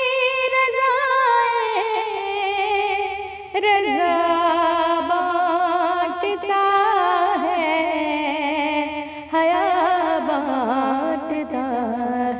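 A high voice singing an Urdu devotional manqabat, holding long, wavering wordless notes. The melody comes in four phrases, each starting lower than the one before.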